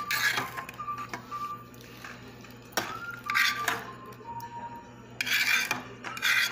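A metal spoon scraping and clinking against the side of a stainless steel pot as it scoops beans in thick sauce. The scrapes come in several separate strokes, the longest about five seconds in.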